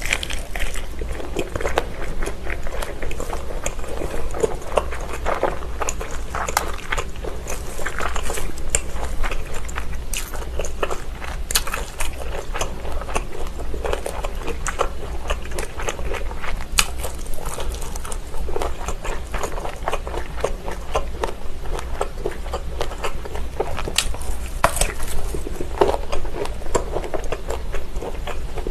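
Close-miked chewing and biting of Vienna sausages: a steady run of wet mouth smacks and short clicks.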